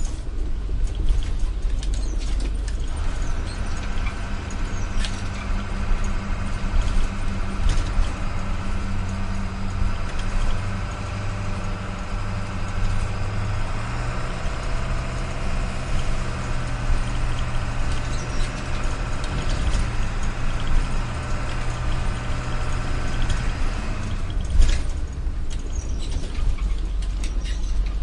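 A steady engine-like drone, like a truck running, with a low hum that steps up in pitch about halfway through. It stops near the end, where a sharp knock is the loudest sound.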